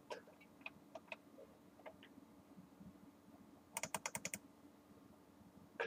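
Faint scattered clicks, then a quick run of about eight sharp clicks about four seconds in.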